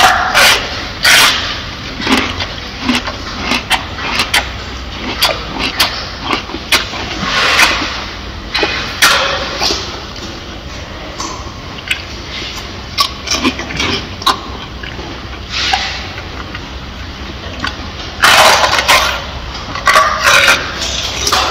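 Gorilla biting into and chewing a red bell pepper: irregular wet crunches and mouth smacks, with a louder run of crunching near the end as it takes another bite.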